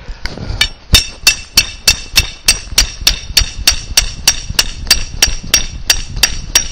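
Claw hammer striking the top of a garden stake in quick, steady blows, about three a second, driving it into the soil. Each blow is a sharp knock with a brief metallic ring.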